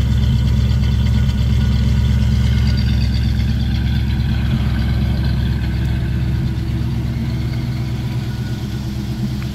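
1953 Oldsmobile 98's Rocket V8 idling steadily at the tailpipe, growing a little fainter toward the end.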